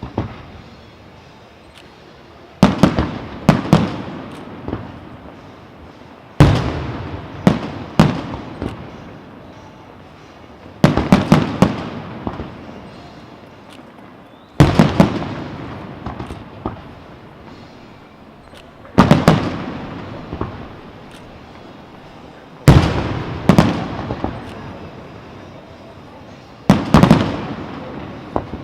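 Aerial fireworks shells bursting in clusters of several sharp bangs, a new cluster about every four seconds, seven in all, each trailing off in echo.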